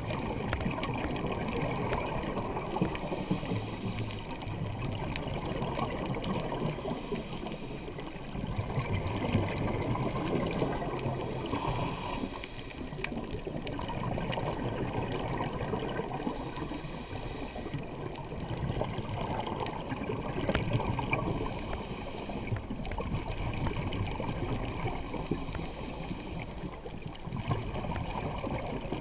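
Muffled underwater rushing and gurgling heard through a camera's waterproof housing, swelling and easing every few seconds.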